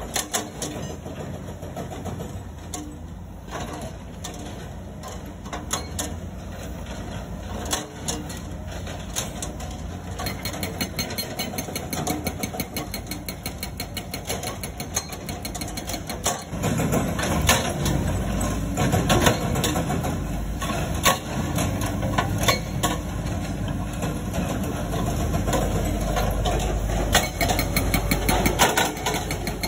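Komatsu excavator diesel engine running while a hydraulic rock breaker hammers stone in a series of sharp strikes. The engine and hammering grow louder a little past halfway.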